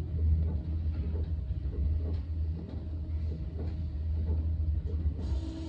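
Tobu Skytree Line electric commuter train running on the track, heard from inside the car as a steady low rumble with a few faint clicks.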